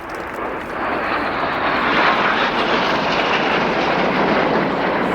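A formation of Red Arrows BAE Hawk T1 jets flying past: steady rushing jet noise that builds over the first couple of seconds and then holds loud.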